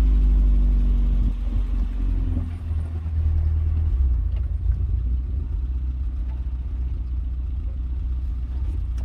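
Car engine running, heard from inside the car as a steady low rumble. A humming engine note fades out about two seconds in, leaving the rumble.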